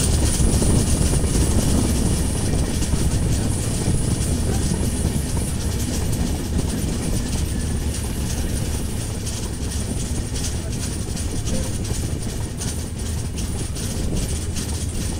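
Steady low rumble and rushing noise of a moving vehicle, with faint irregular ticks through it.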